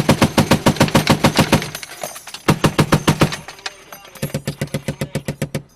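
Machine gun firing three bursts of automatic fire, about ten rounds a second: a long burst of about two seconds, a short one, then another burst of about a second and a half.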